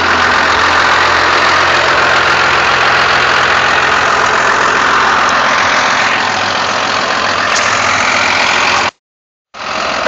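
Blue Bird bus engine idling steadily. The sound cuts out completely for about half a second near the end.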